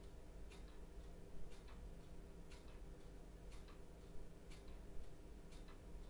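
Clock ticking quietly, about one tick a second, several ticks followed closely by a fainter second click, over a steady low room hum.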